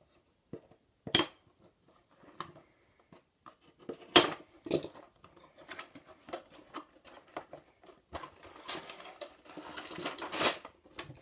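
Scissors snipping through the tape seals of a cardboard LEGO box, a few sharp snips, with smaller clicks and handling of the cardboard box. Near the end comes a rustling stretch as the plastic bags of parts are pulled out.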